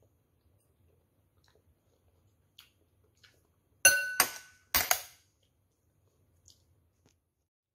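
A spoon and chopsticks clinking against a hard bowl as they are set down: two pairs of sharp clinks in the middle, the first ringing briefly.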